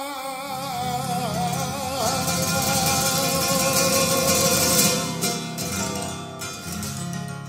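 Flamenco granaína: a male singer ends a wavering, ornamented sung line over the guitar in the first two seconds, then the flamenco guitar carries on alone with full chords, loudest about four to five seconds in and fading toward the end.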